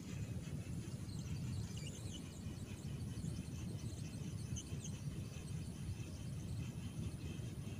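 Outdoor ambience: a steady low rumble, with faint, scattered high chirps and ticks over it.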